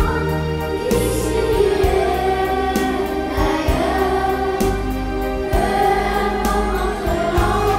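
A group of children singing a song together over a backing track with bass notes and a steady beat.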